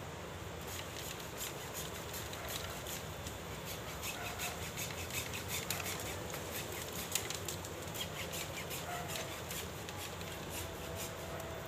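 Dry bamboo leaves and culm sheaths crackling and rustling as a bamboo clump is worked by hand: a quick, irregular run of small snapping ticks, busiest in the middle.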